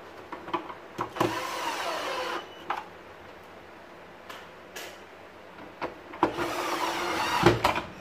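Cordless drill-driver whirring in two short runs as it drives screws back into a vacuum cleaner's plastic housing, its pitch sliding as the screw takes up; light clicks and knocks of handling between the runs.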